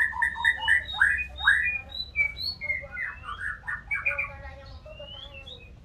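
White-rumped shama (murai batu) singing a rapid run of varied, rich whistled notes with rising and falling slurs, growing fainter toward the end.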